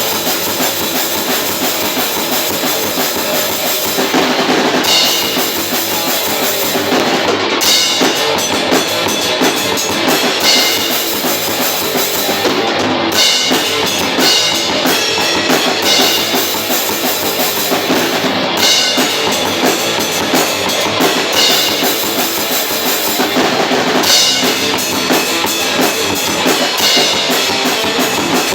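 Experimental metal band playing live in rehearsal, the drum kit's bass drum and snare prominent in a loud, dense mix.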